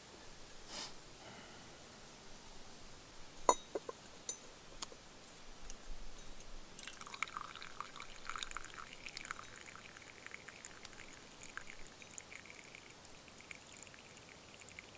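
Liquid being poured in a thin, fluttering stream, with a sharp knock about three and a half seconds in before the pouring starts.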